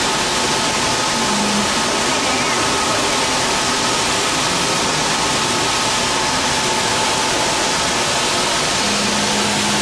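Steady, even rushing noise of large air blowers in a chilled, air-conditioned hall, with a faint steady whine mixed in.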